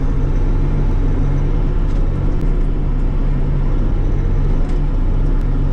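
Bobcat E42 mini excavator's diesel engine running steadily under load as the machine swings and works its boom, heard from beside the open cab.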